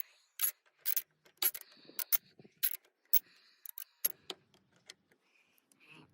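Hand ratchet with a 10mm socket clicking in sharp single clicks, about two a second, as a bolt that has been broken loose is backed out.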